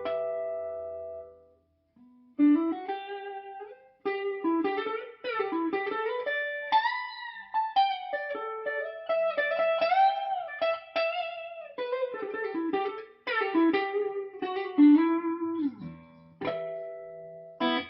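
FGN JOS-FM-M electric guitar played on a clean tone through a Peavey Bandit 112 amp: a single-note melody with notes bent up and down and shaken with vibrato, a short break about two seconds in, ending on a held chord.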